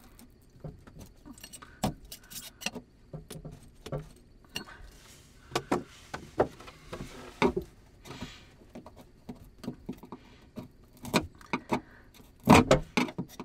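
Metal blade scraping and picking at cured marine sealant around a plastic thru-hull fitting: irregular clicks and short scrapes, with a louder cluster of strokes near the end. The sealant, which the owner takes for 5200, is stuck fast.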